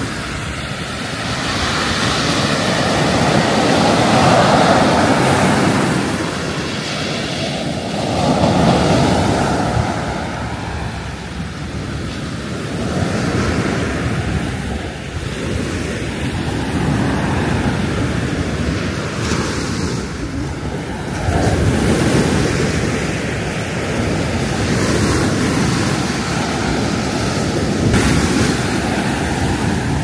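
Sea surf breaking and washing up a sandy beach, swelling and fading every few seconds.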